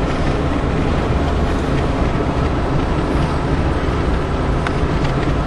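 Steady road noise of a moving car heard from inside the cabin: engine and tyres at driving speed.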